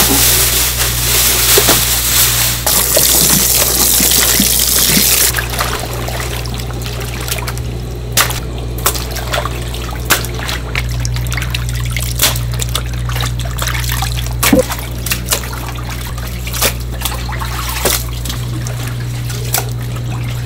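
Water running into a tub for about the first five seconds, then dripping and splashing with scattered knocks as fish are washed by hand in the water. A steady low hum underneath.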